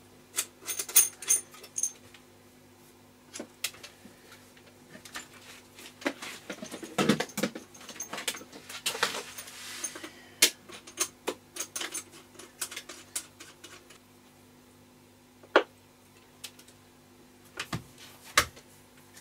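Irregular clicks, knocks and rattles of a CB radio, its coiled microphone lead and power cables being handled and reconnected on a workbench, with a denser spell of rustling and clatter in the middle. A faint low steady hum runs underneath.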